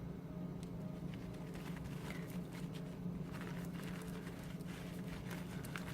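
Faint light clicks and patter of seeds dropping out of a dried loofah piece as it is worked, over a low steady hum.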